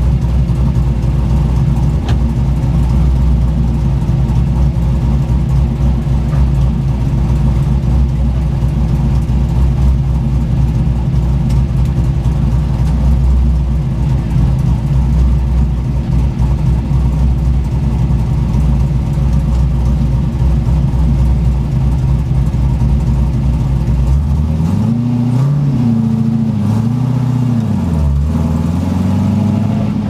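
A 5.3 LS V8 swapped into a BMW E36, running through homemade tri-Y-style headers, idles steadily, heard from inside the cabin. About 24 seconds in, the revs rise and fall several times.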